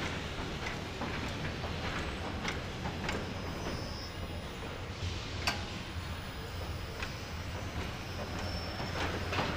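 Car assembly-line machinery: a steady low hum with scattered clicks and clanks, and one sharper click about five and a half seconds in.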